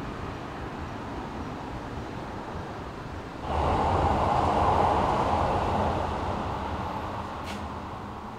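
A Keikyu Line train passing on the elevated track overhead: a rumble that swells suddenly about three and a half seconds in, then slowly fades away.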